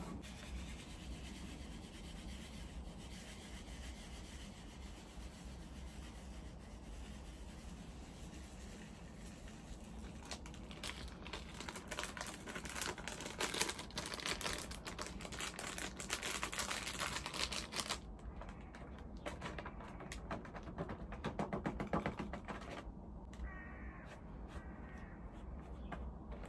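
Close, quiet handling sounds: runs of quick light clicks and rubbing, busiest through the middle of the stretch, over a low steady hum.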